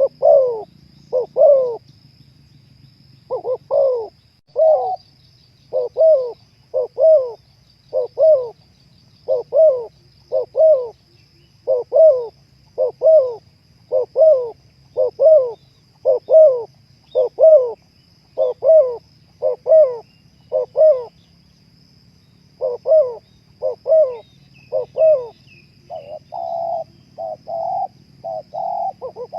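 Spotted dove (terkukur) cooing: a long series of short, falling coo notes, about one a second, with two short pauses. Near the end the notes come flatter and closer together. A faint steady high tone sits beneath.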